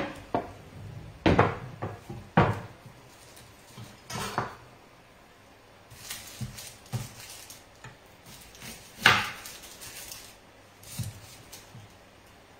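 Scattered knocks and clatter of a knife and a wooden cutting board on the kitchen counter while onion is cut, several sharp strikes with pauses between them, one louder about nine seconds in.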